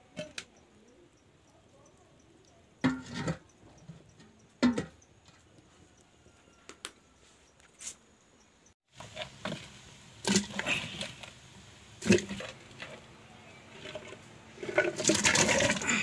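Clay cooking pots being handled on a stone hearth: scattered knocks, clinks and scrapes at irregular intervals, busier and louder in the second half.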